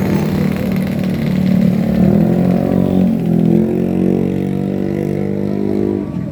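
A bus engine running loud as it passes close by, its pitch stepping down about halfway through, then easing off near the end.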